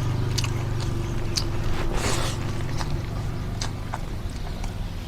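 Close-up eating sounds: scattered wet mouth clicks and chewing, with a short louder hiss about two seconds in, over a steady low hum.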